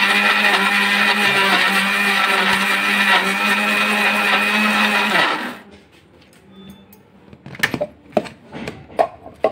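Electric mixer grinder running at full speed with a steady whine, grinding biscuits to powder in its steel jar; it switches off about five seconds in. A few sharp plastic clicks and knocks follow near the end as the jar's lid is lifted off.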